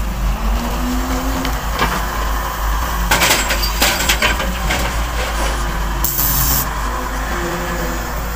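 Heavy diesel engine of an excavator running steadily, with a brief rising tone about a second in, a cluster of knocks and rattles around three to four seconds in, and a short hiss about six seconds in.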